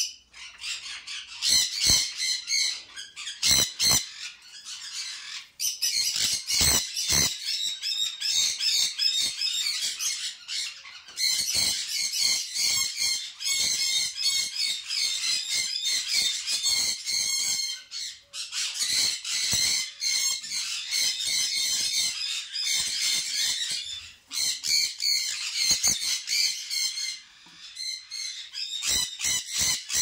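A flock of small caged aviary birds chirping and squawking in a dense, continuous chatter, with a few sharp clicks in the first several seconds.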